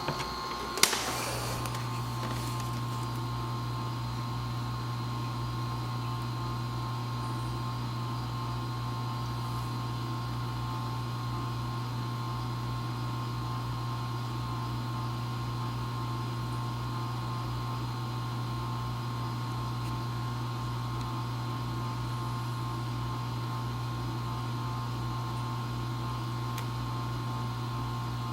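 Vortech MP60 aquarium propeller pump running steadily on constant mode: a low hum with a thin higher whine above it, which is the noise the owner is questioning. There is one sharp click about a second in.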